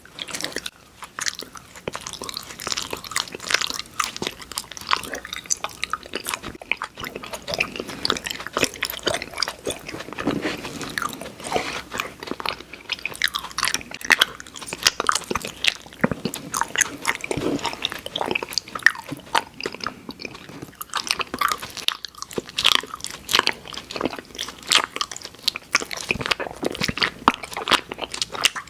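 Close-miked eating of sweets: continuous biting, crunching and chewing, with dense, irregular crackles and no pauses.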